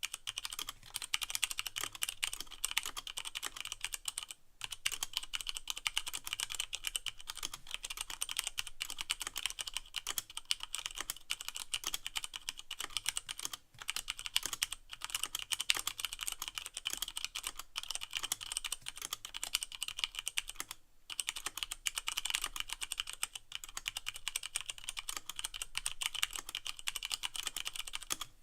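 Continuous fast typing on a Leopold FC660M mechanical keyboard with Cherry MX Brown switches and no O-rings, a dense run of sharp keystroke clicks. It breaks off briefly three times, about four, fourteen and twenty-one seconds in.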